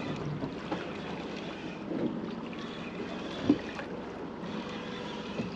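Wind and sea noise on an offshore fishing boat, with a faint steady hum under it and one sharp knock about three and a half seconds in.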